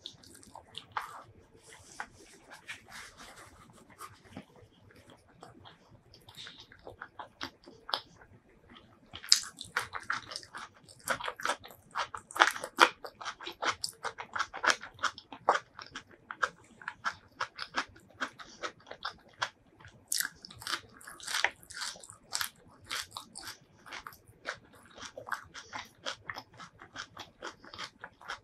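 Close-miked mouth sounds of eating curried boiled egg and rice by hand: wet chewing and sharp crunching bites. Quieter and sparser for the first eight seconds or so, then denser and louder from about nine seconds in.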